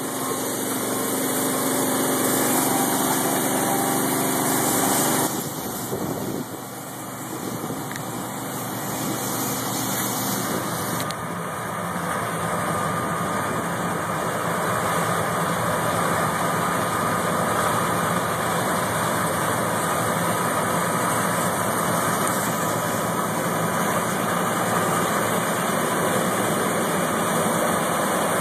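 Heavy farm harvest machinery running steadily, a continuous engine and machine hum that dips briefly about six seconds in and then holds steady.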